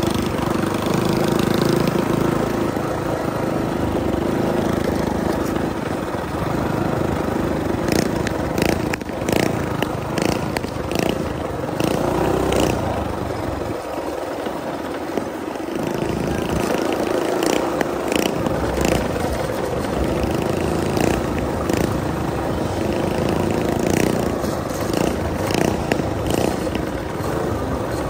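Coleman BT200X mini bike's small single-cylinder engine running steadily under way, with a few sharp clicks in the middle and near the end.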